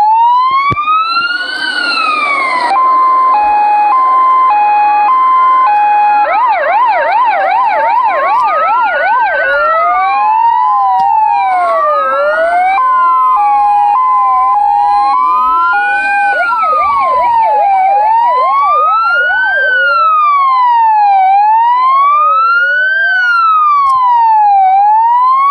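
Polish police car siren cycling through its modes: a slow rising-and-falling wail, then a two-tone hi-lo about 3 seconds in, then a fast yelp about 6 seconds in. The same wail, hi-lo and yelp sequence repeats, and the siren settles back into the slow wail for the last few seconds.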